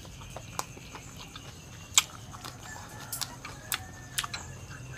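A metal spoon clinking against a glass sauce bowl and steel tray in a string of sharp clicks, the loudest about two seconds in. A chicken clucks faintly in the background.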